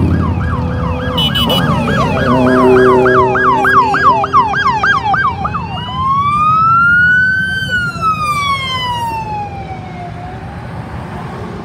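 Police siren sounding a fast yelp, switching about six seconds in to a slow wail that rises and then falls away. At the start it runs over the sound of passing motorcycles, which fades.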